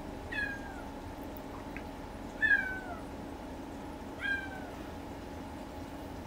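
Siberian kitten meowing three times, short high calls that each fall in pitch, the second the loudest. The crying of a kitten newly separated from its mother, as if calling for her.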